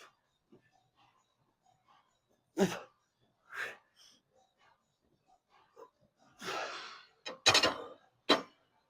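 A man breathing hard in short, forceful exhalations, as during the effort of a lifting set, the loudest coming in quick succession a little past the middle.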